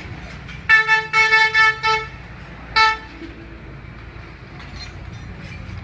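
A vehicle horn beeps about five times in quick succession, then once more a moment later, over a steady low traffic rumble.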